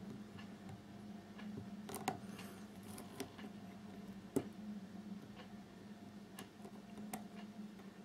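Small, irregular metallic clicks of a hook pick working the pins of a Kwikset pin-tumbler door lock held under a tension wrench, the loudest about two seconds in and again past four seconds. A steady low hum runs underneath.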